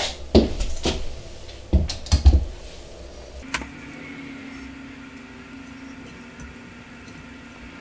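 Handling knocks and thumps from the camera being carried and set down, then a sharp click about three and a half seconds in, followed by a faint steady low hum.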